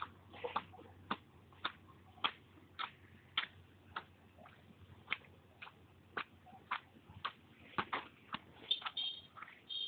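Sharp knocks repeating at a steady pace, a little under two a second, with a brief high chirp near the end.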